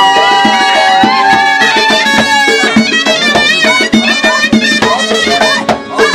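Folk dance music: accordion with a wavering held lead melody over a steady drum beat.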